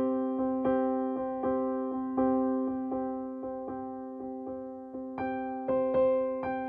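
Background music: a piano-like keyboard playing slow, sustained chords with gently struck repeated notes, moving to a higher chord about five seconds in.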